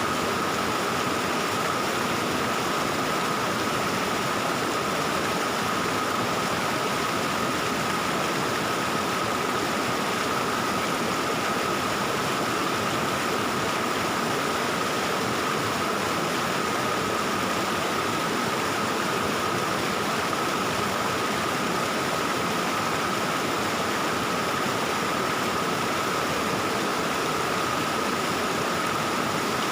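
Stream water flowing steadily, a constant rush with a thin high tone held through it.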